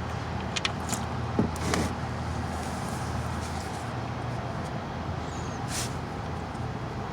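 A steady low engine hum, with a few sharp clicks and knocks in the first two seconds and one more near the end.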